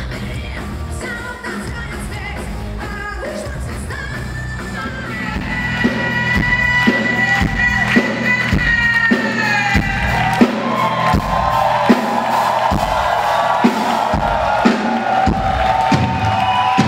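Rock band playing with a woman singing. About five seconds in it gets louder, with long held sung notes over a kick drum beating roughly once a second.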